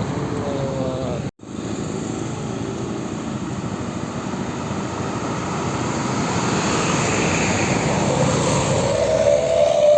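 A bus's engine noise growing steadily louder as it comes closer, with a brief dropout about a second in. Near the end a ship-style air horn starts, its tone gliding upward and held.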